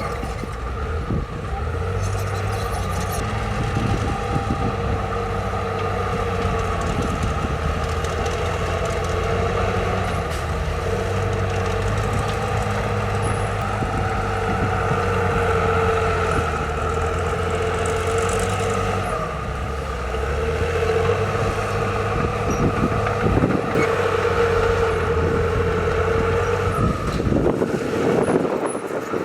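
Diesel engine of heavy earthmoving machinery running steadily, a low drone with a whine above it; the engine note steps up and down a few times as the load changes, and the sound changes shortly before the end.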